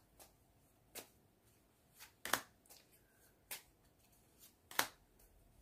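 A deck of divination cards being shuffled by hand: a string of short, sharp card snaps, about one a second at uneven spacing, two of them louder than the rest.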